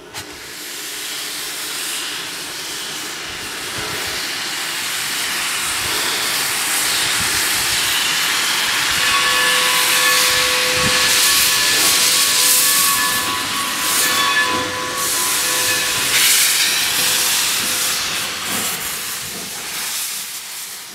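Steam locomotive venting steam in a long, loud hiss that swells through the middle and fades at the end, with a thin steady whistle-like tone sounding under it for several seconds in the middle.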